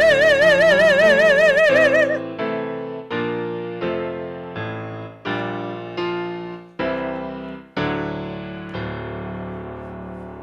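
A classically trained voice with wide vibrato holds its final note over piano for about two seconds, then the piano plays a closing passage alone: separate chords struck one after another, each dying away, fading toward the end.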